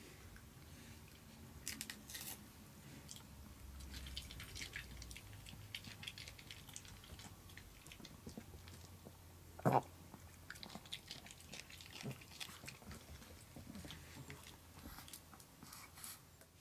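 A pet chewing a crunchy treat: irregular small crisp crunches and chewing, with one louder short knock about ten seconds in.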